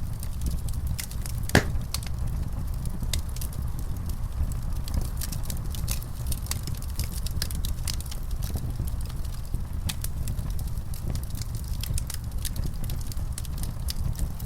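Wood fire in a fireplace crackling, with frequent irregular sharp pops over a steady low rumble of the burning. One louder pop comes about a second and a half in.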